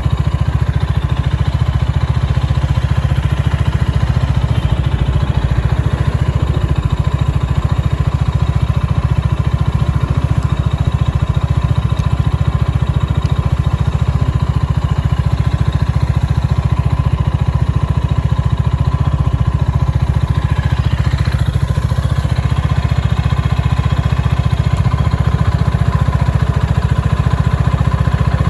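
Gilera AC4 250cc motorcycle engine idling steadily, with no revving.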